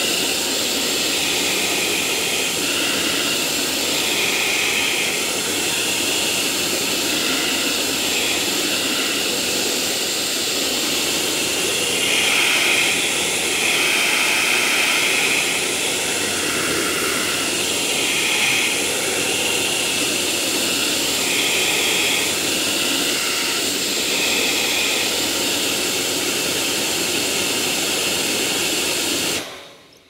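Vacuum cleaner running with a steady rushing noise, its higher tones swelling and fading every second or two; it stops near the end.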